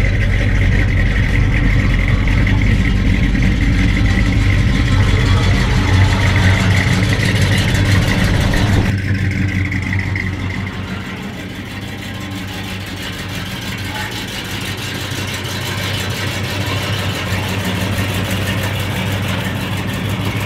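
1970 Chevrolet Chevelle's V8 running at a steady idle, heard at the exhaust with a deep, even rumble. About nine seconds in the sound changes and the deepest part of the rumble fades, then it carries on steady and a little quieter.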